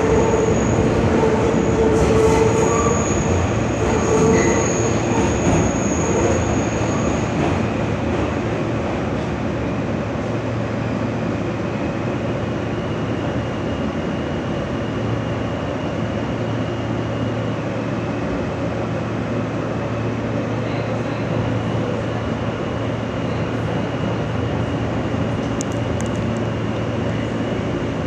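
R160 subway car running, heard from inside the car: a steady rumble of wheels on rail, with a thin, high wheel squeal during the first several seconds.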